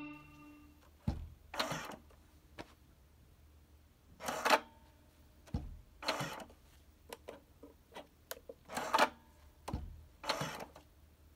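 Handling noise on the plastic lid of an Eppendorf 5424 centrifuge: a gloved hand presses and rubs on the lid. There are about five short scraping rustles, with sharp clicks and a few dull thumps between them. A fading musical tone rings briefly at the very start.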